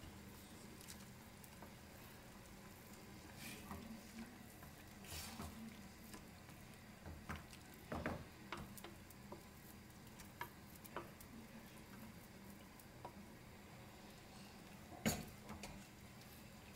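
Boiled rice being tipped from a steel pot into a steel saucepan of simmering meat and carrots and stirred in with a wooden spoon: faint soft patter and scraping, with a few sharp knocks against the pan, the loudest about fifteen seconds in.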